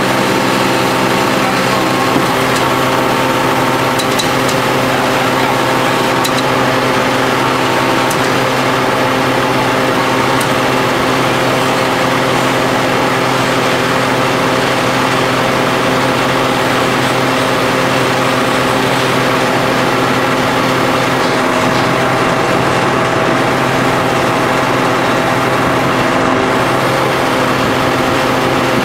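Hydraulic power unit of an H-beam pile extractor running steadily under load while the extractor's cylinders extend and pull the pile: an even, unchanging mechanical drone, with a few faint ticks in the first third.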